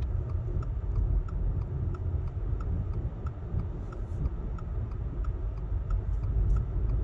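Inside a moving car: steady low road and engine rumble, with a light ticking about three times a second running through it.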